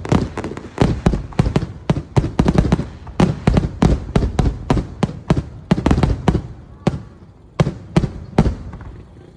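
Fireworks exploding in a rapid barrage of bangs, several a second, thinning to a few separate bangs near the end and then dying away.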